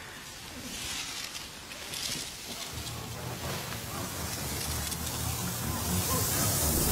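Film sound effect of a mass of dark smoke swirling in: a whooshing, wind-like rush that grows steadily louder, with a deep rumble joining about three seconds in.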